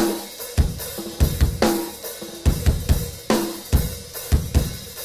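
Background music led by a drum kit playing a steady beat, with snare and bass drum hits and cymbals.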